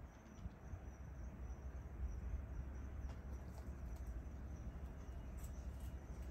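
Quiet outdoor ambience: a faint, steady high-pitched insect trill, like crickets, over a continuous low rumble, with a few faint ticks in the middle.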